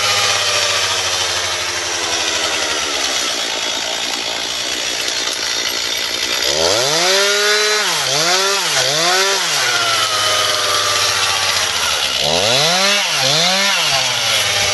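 Chainsaw running, its engine revved up and down in quick blips: three in a row about halfway through and two more near the end, with steadier running between.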